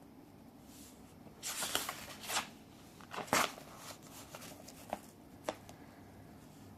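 Paper rustling in a few short bursts as the pages of a picture book are handled and turned, followed by two light clicks.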